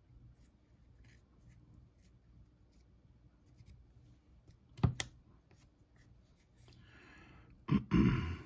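Small hand tool scraping and spreading spackle, with faint scratches, a sharp knock about five seconds in, and a louder rush of scraping and knocks near the end.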